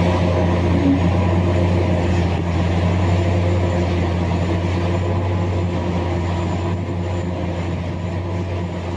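Large diesel engine of a heavy mining machine running steadily, a deep drone that slowly grows quieter.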